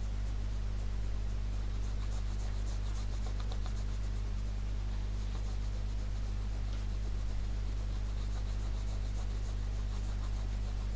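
A colouring pen rubbing on paper in quick back-and-forth strokes, filling in an area of a drawing, in short runs. A steady low electrical hum runs underneath and is the loudest thing heard.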